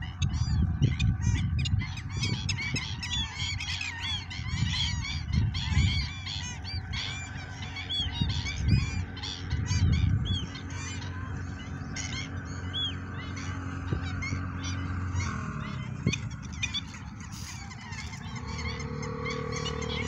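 A flock of black-winged stilts calling: many short, overlapping yapping calls, busiest in the first half. A low rumble runs under them and stops about three-quarters of the way through.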